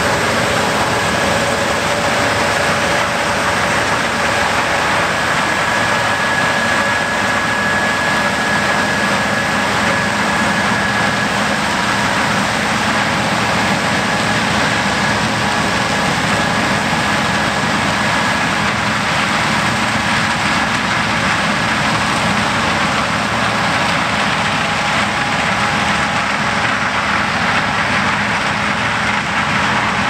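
Fendt IDEAL 9T combine's 564-hp engine and threshing machinery running steadily under load while harvesting corn, with the unloading auger running, a loud even din with a few faint steady whines.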